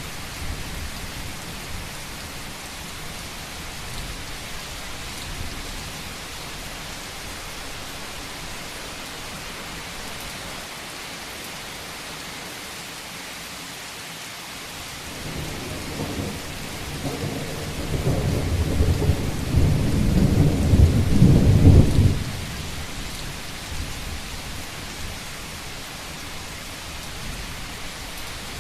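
Steady rain on a roof, with a low roll of thunder that builds from about halfway through and stops suddenly about three-quarters of the way in.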